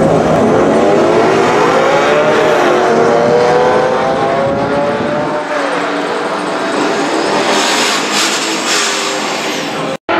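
Engine of a performance vehicle pulling away at low speed: its pitch rises, dips at a gear change about three seconds in, climbs again, then eases off.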